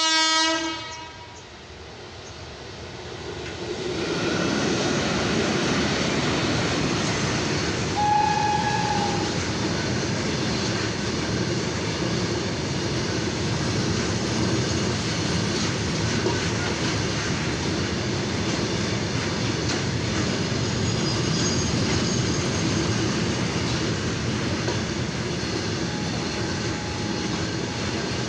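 Freight train: a horn blast in the first second, then the loud, steady rumble and clatter of goods wagons rolling past, with one short high tone about eight seconds in.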